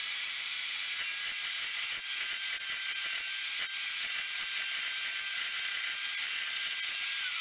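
Evolution R355 14-inch carbide-tipped metal-cutting chop saw running at full speed with a steady high whine as its blade cuts through steel rebar. The motor starts to wind down, falling in pitch, at the very end.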